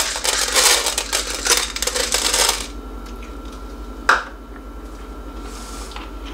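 Dry popcorn kernels clicking and rattling against the nonstick plate of a West Bend Stir Crazy popper as they are spread out by hand, stopping about two and a half seconds in. A single sharp knock follows about four seconds in.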